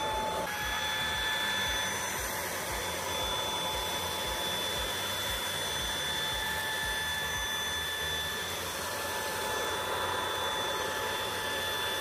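Dreame V11 cordless stick vacuum running steadily: a high motor whine over a rushing of air, with a small shift in the whine about half a second in.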